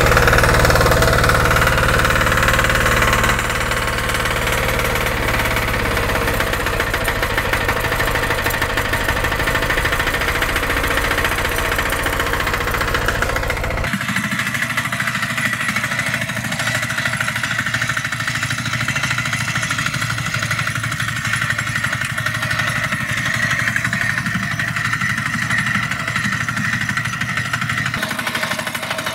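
Kentavr MB 2060D walk-behind tractor's 6 hp single-cylinder diesel engine running just after being pull-started, with a steady diesel clatter. It settles a little quieter about three seconds in and sounds thinner from about halfway, heard from farther off.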